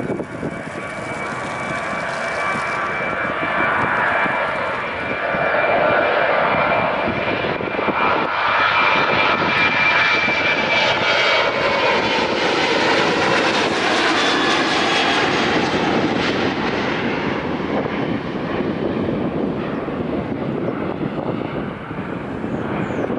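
Airbus A319's twin CFM56-5B jet engines at takeoff thrust: a loud roar with a high whine running through it, growing over the first six seconds or so and then holding steady.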